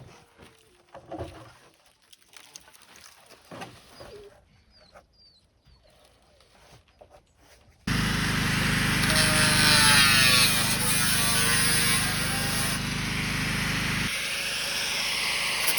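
Faint scattered small sounds, then a loud machine starts abruptly about halfway through and runs steadily with a low hum and sweeping whine; the low hum drops out near the end.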